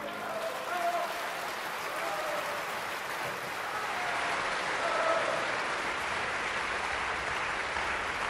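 Theatre audience applauding steadily at the end of a ballet solo.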